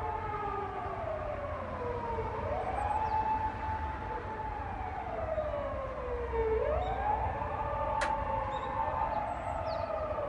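Emergency vehicle sirens wailing, at least two overlapping, each slowly rising and falling in pitch. A single sharp click about eight seconds in.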